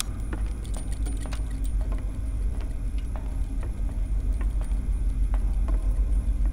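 Sound-designed ambience of a giant machine: a steady deep rumble with small mechanical clicks and ticks at irregular intervals and a faint high whine above.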